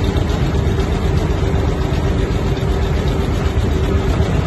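A motor running steadily: a loud low rumble with a constant hum that does not change.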